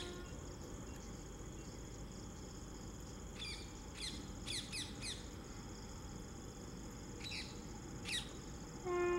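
Bird calls: a few quick whistles, each sliding steeply down in pitch, some in close succession midway through, over a faint steady high whine. Just before the end an electric locomotive's air horn starts up in a steady, louder blast.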